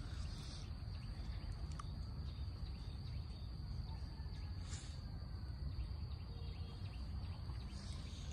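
Quiet steady background ambience: a low rumble with a thin, steady high tone running through it, and a few faint clicks.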